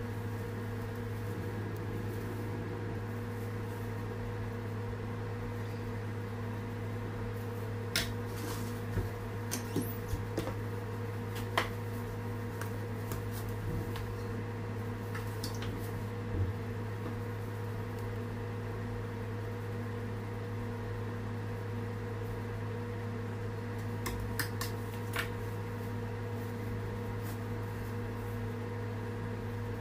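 Steady mechanical hum of a running appliance, one low tone with a few fainter higher ones. A few light clicks and taps come about a third of the way in and again near the end.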